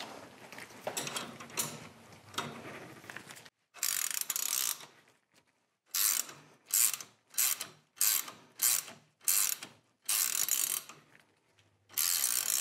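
Socket ratchet clicking in a series of short back-and-forth strokes, about two a second with pauses between runs, as it turns the forcing screw of a three-jaw puller.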